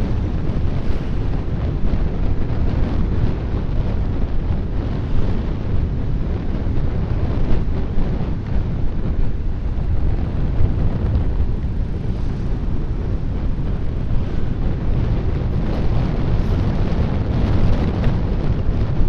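Wind buffeting the microphone of a moving vehicle, a loud steady rumble with road and engine noise under it.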